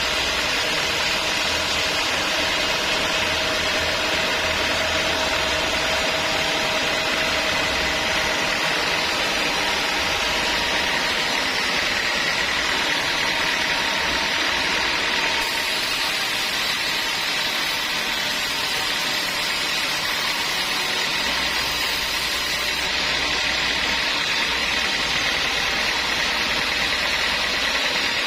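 Sawmill machinery running steadily: a motor's drone with a steady high whine, no pauses or changes in level.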